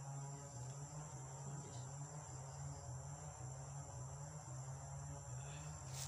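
Forest insects droning: a continuous high-pitched ringing, with a low, uneven hum beneath it.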